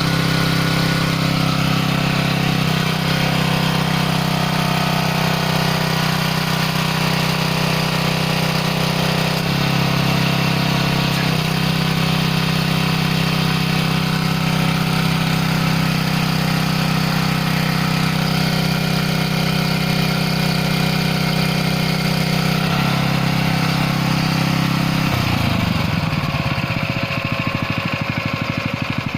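Gasoline engine driving a hydraulic pump, running steadily; near the end its pitch falls as the engine slows down.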